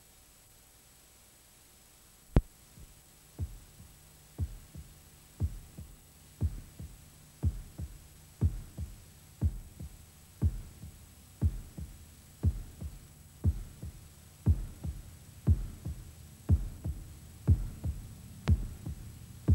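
Heartbeat sound effect on a music soundtrack. It starts about two seconds in as paired thumps, a strong beat and a softer one just after, about once a second, growing louder over a faint low hum.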